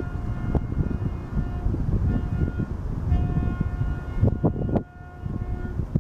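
Train horn sounding three blasts, a long one, a short one, then a longer one, over a low rumble.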